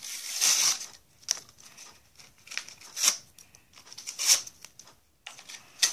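Plastic blister pack of a scented marker being pulled and torn open by hand: a series of short crackling, tearing bursts.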